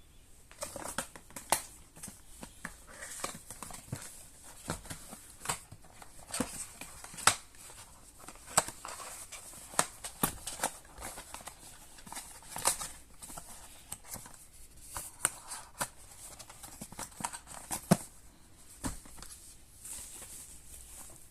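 Irregular clicks, taps and light rustling, roughly one or two a second, from a tablet and its packaging being handled.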